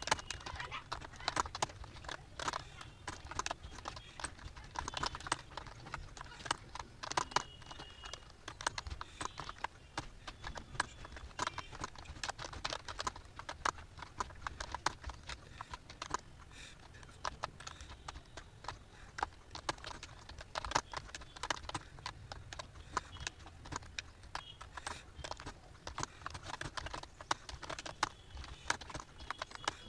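Computer keyboard being typed on continuously: a fast, irregular stream of key clicks over a low steady hum.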